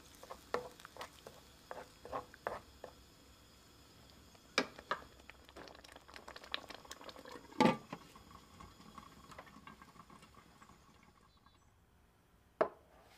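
Thick tomato and onion sauce simmering in a stainless steel wok, its bubbles bursting in irregular wet pops and spatters, the biggest pop about halfway through, then dying down. A single knock near the end, as a metal tray of roasted cauliflower is set down on a wooden table.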